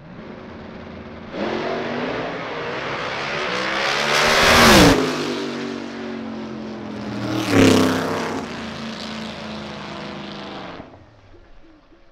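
Two drag cars launching side by side at full throttle and accelerating hard down the strip. The engine sound jumps up about a second in and rises in pitch. It is loudest as a car passes close at about five seconds, with a sharp drop in pitch, and peaks again near eight seconds before fading away downtrack.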